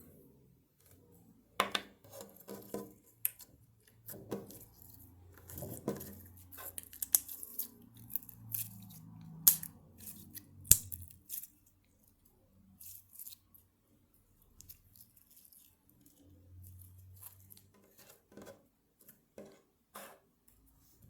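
Slime being handled, giving irregular sharp clicks, pops and crackles, dense through the first half and sparser afterwards.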